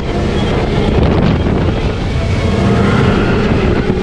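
Wind rushing over the microphone with the low rumble of a Radiator Springs Racers ride car speeding along its track.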